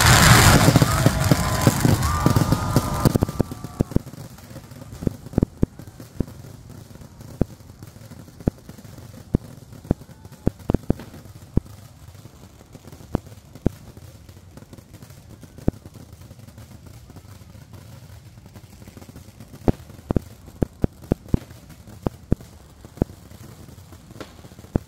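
Kerala temple fireworks: a dense, loud barrage of explosions for about the first three seconds, then scattered sharp bangs and cracks, some coming in quick clusters.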